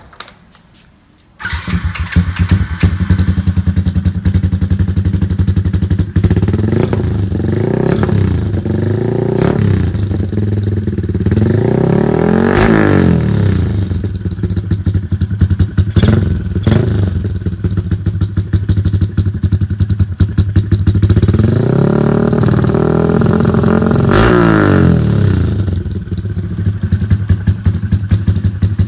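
Yamaha LC135 single-cylinder four-stroke engine, bored out to 63 mm with a 28 mm manifold, breathing through an SCK M3 aftermarket exhaust. It starts suddenly about a second and a half in and idles, with a few quick throttle blips, then a rev that rises and falls, and later a longer rev that climbs and drops back to idle.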